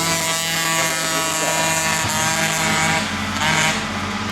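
Several flat track racing engines running together at high revs, overlapping steady engine notes, with a brief surge about three and a half seconds in.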